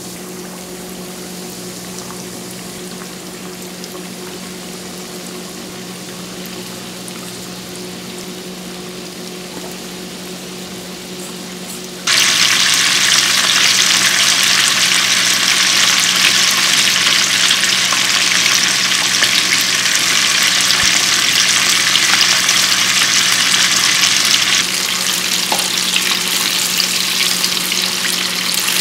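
Karaage chicken pieces deep-frying in hot oil: a steady crackling sizzle that jumps louder about twelve seconds in and drops back a little a few seconds before the end.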